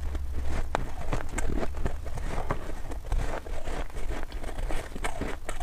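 Close-miked chewing of powdery frost ice: dense, irregular crunching with many sharp crackles.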